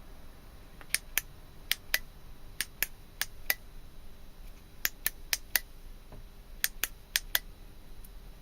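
The tail-switch button of a ThruNite T10 AA flashlight clicks about sixteen times, in quick pairs and short runs, as the light is switched and stepped through its modes.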